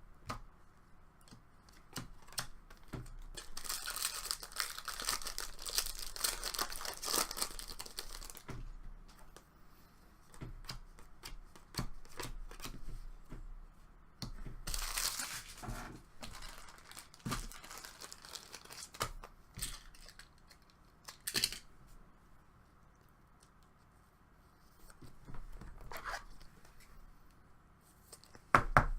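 Hockey card pack wrappers being torn open and crinkled by hand. There is a long stretch of tearing and rustling about four seconds in, a shorter one near fifteen seconds, and small handling clicks between them.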